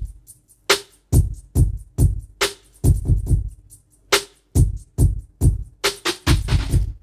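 Programmed hip-hop drum beat playing back from Logic Pro X's Drum Machine Designer at 140 bpm: sampled kick and snare hits in a steady pattern, with a quicker run of hits near the end.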